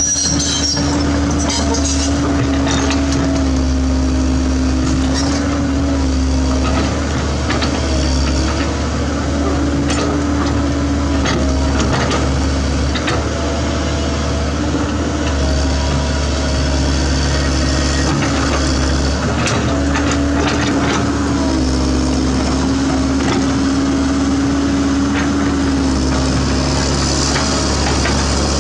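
Komatsu PC130F excavator's diesel engine running under working load, its steady drone dipping and rising in pitch as the hydraulics take the strain of the arm and bucket. Scattered knocks and cracks from the bucket digging into soil and roots around a tree stump.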